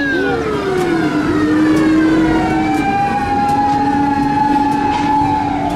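Japanese fire rescue truck's siren wailing. Its pitch falls about a second in, climbs slowly and holds, then starts to fall again near the end, with a steady lower tone beneath.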